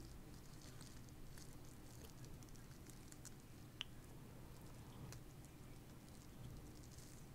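Faint crinkling and small clicks of a clear plastic packaging bag being handled, with one sharper tick a little before halfway through.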